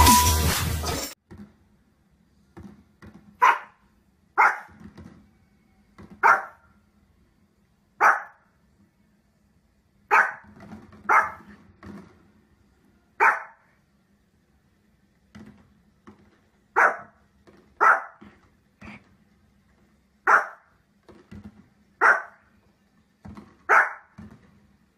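A dog barking in single, separate barks, about a dozen loud ones spaced a second or two apart, with fainter short sounds between them. The tail of an electronic music intro is heard during the first second.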